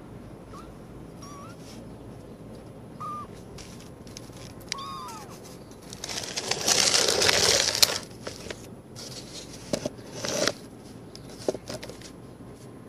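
Young kittens mewing in several short, thin, arched calls during the first five seconds. A loud rustling scrape comes midway, with a shorter one a couple of seconds later.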